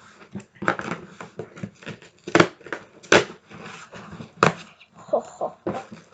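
A cardboard box and its packaging being handled and pulled open: a quick, irregular run of sharp knocks, scrapes and rustles.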